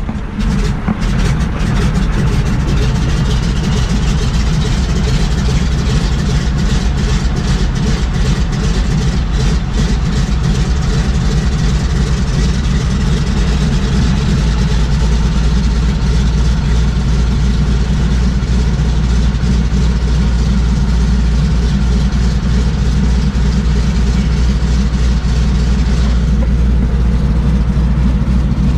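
Single-engine floatplane's piston engine and propeller running steadily, loud and droning as heard inside the cockpit.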